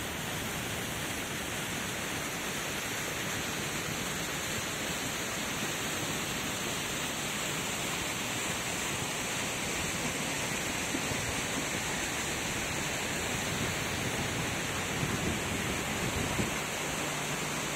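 Steady, even hissing of water, without breaks.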